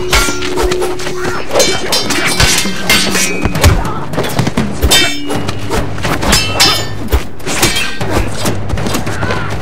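Added fight sound effects: a quick run of sword and blade clashes and heavy thudding hits, over background music.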